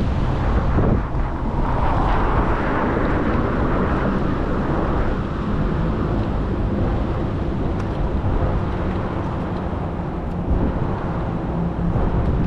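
Wind buffeting the microphone during an e-bike ride: a steady, dense rumble with a faint low hum underneath.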